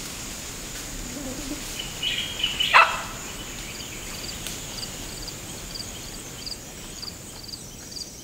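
Woodland wildlife: a steady high insect drone, one loud animal call about two and a half seconds in, and then a short high chirp repeating about twice a second.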